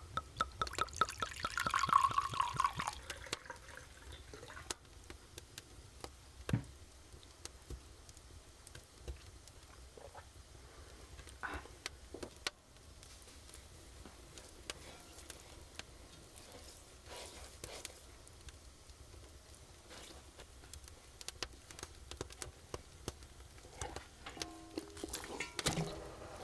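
White wine being poured from a glass tumbler, splashing over a whole duck in a cast-iron roasting pot, loudest in the first few seconds. Small clinks and knocks of handling follow, and a few plucked music notes come in near the end.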